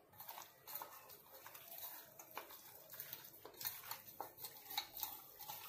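Raw mutton pieces being mixed by hand with salt and spice powders in a steel bowl: faint, irregular soft clicks and rustles of meat and fingers against the bowl.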